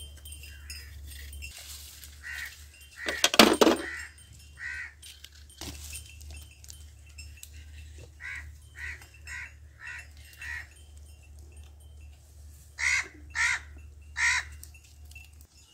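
Crows cawing repeatedly in short calls, with three loud caws near the end.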